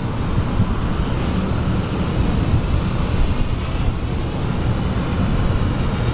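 V120d05 micro RC helicopter in flight: its Extreme Spin 16,300 kV motor and rotors give a steady high whine that wavers slightly in pitch, over a constant low rumble.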